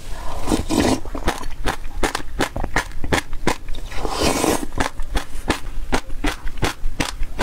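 Close-miked eating of black sesame and passion fruit seed yogurt: a quick run of crisp crackles from chewing the seeds, about four a second. Two louder, wetter mouthfuls come off the spoon, one about half a second in and one about four seconds in.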